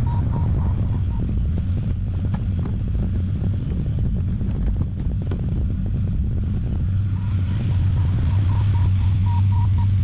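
Diesel engine of a compact earthmoving machine running steadily, with scattered sharp cracks and snaps in the middle and a faint pulsing high tone near the end.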